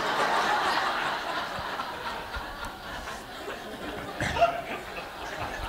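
Congregation laughing, loudest at the start and dying away over the first couple of seconds.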